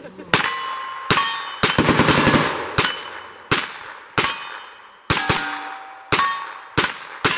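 Gunfire from several guns on an outdoor range: about a dozen shots at uneven spacing, with a rapid string of shots about two seconds in. Several shots are followed by a short metallic ringing.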